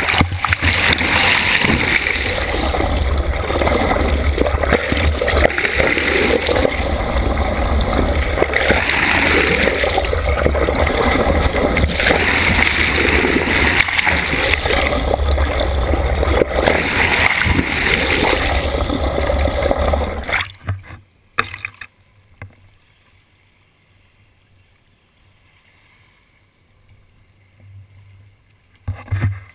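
Water rushing loudly past a GoPro held underwater on a boat hook alongside a moving boat, with a deep rumble and a churning texture. About two-thirds of the way through it cuts off abruptly to a much quieter level, with a few short splashes near the end as the camera breaks the surface.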